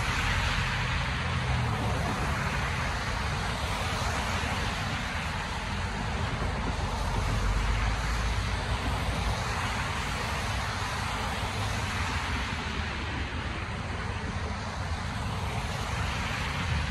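Road traffic driving past on wet pavement: a steady hiss of tyres on the wet road with low engine rumble.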